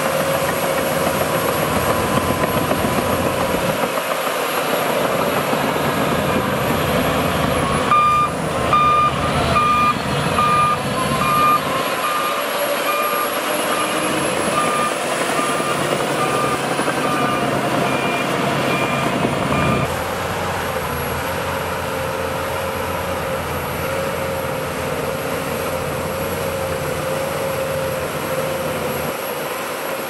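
Shantui DH17C2 crawler bulldozer's diesel engine running steadily while it pushes dirt, with a reversing alarm beeping about once a second from about eight seconds in until about twenty seconds in.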